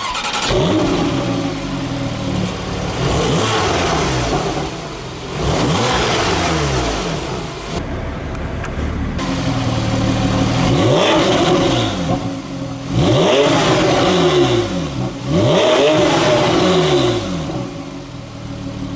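2014 Porsche 911 Targa 4S's 3.8-litre flat-six through the Porsche Sport Exhaust, revved repeatedly while standing still. There are about six quick blips, each rising and falling in pitch, and the engine drops back to idle between them.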